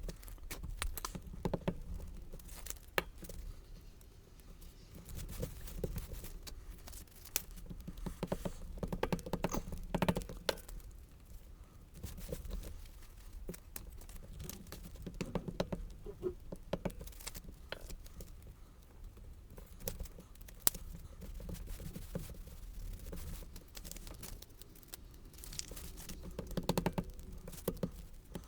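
Paper and cardstock being handled at a craft table: rustling, light taps and scattered sharp clicks as pieces are glued and assembled.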